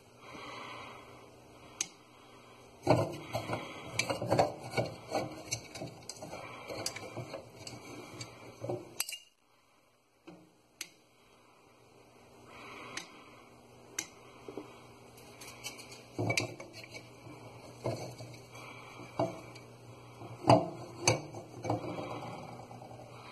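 Small round hard candies clicking and rattling against a clear ridged tumbler as they are poured and handled: a dense run of rattling, a brief silence, then more scattered clicks.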